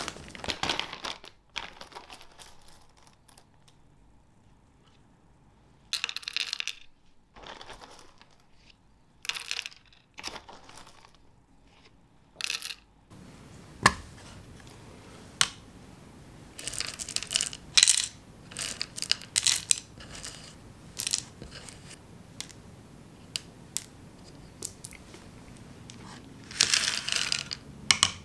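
Dark chocolate discs clattering and rattling onto a wooden cutting board and a kitchen scale, in scattered short bursts with sharp taps and clicks between them.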